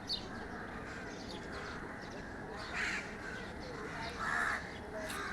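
Bird calls: two short calls, about three seconds in and again around four and a half seconds, over steady outdoor background noise.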